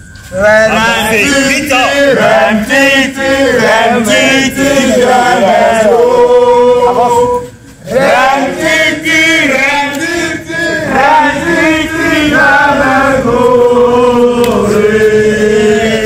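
A group of male voices chanting a scout campfire call song together, in two long sung phrases with a short break about halfway.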